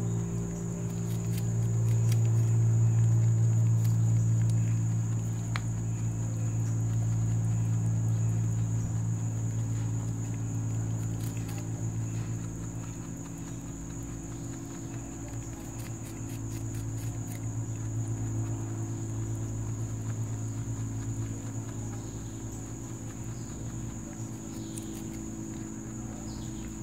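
Rabbit nibbling peach slices from a hand, heard only as a few faint sharp clicks under a steady low hum and a constant high insect drone.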